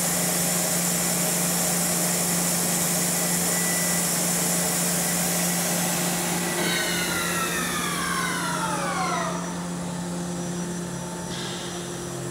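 Kuraki KBT-11WA horizontal boring mill's spindle running at 3,000 RPM in high gear range, a steady mechanical whine over a constant hum. About six seconds in, a whine falls in pitch over about three seconds and the running noise drops as the spindle slows down.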